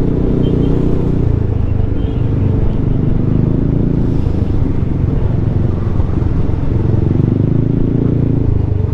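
Yamaha XMAX scooter's engine running steadily under way, mixed with a steady rumble of wind on the helmet-mounted microphone.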